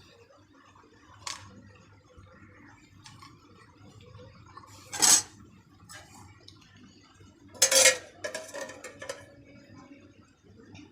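Dishes and utensils clattering and knocking in a few separate handlings. The loudest clatters come about five seconds in and near eight seconds in, the second followed by a run of smaller knocks.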